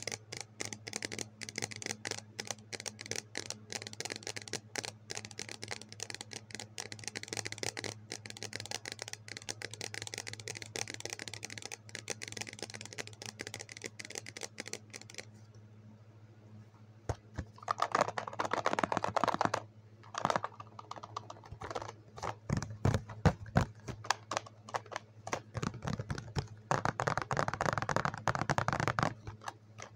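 Fingers tapping and scratching rapidly on a clear plastic cup, then tapping and rustling on a cardboard box after a short quiet spell about halfway through. A low steady hum runs underneath.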